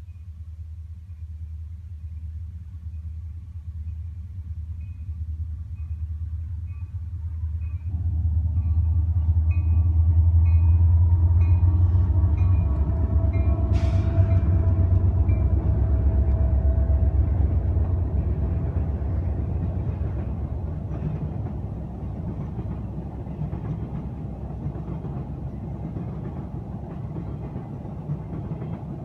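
Diesel freight train passing close by: the Union Pacific locomotive's engine rumble swells to a peak around ten seconds in, then the cars roll past with a steady rattle of wheels on the rails. A single sharp click cuts through about fourteen seconds in.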